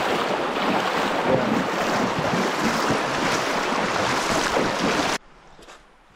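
Steady rushing of creek water, cutting in suddenly and stopping abruptly about five seconds in.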